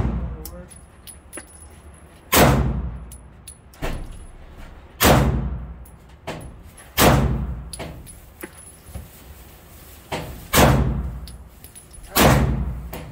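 Gunshots fired slowly one at a time on an indoor range, each a sharp bang with a short echoing tail: five loud shots about two to three seconds apart, with a couple of fainter bangs in between.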